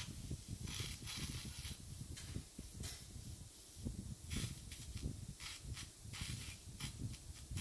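Dental suction tip hissing in irregular bursts as it draws blood and pus from an incised gum abscess, over a low steady rumble.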